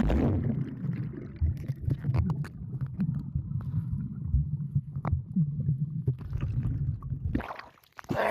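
Muffled underwater rumble and faint clicks of a swimmer diving, heard through an action camera's waterproof housing. Near the end the camera breaks the surface with a short splash of water.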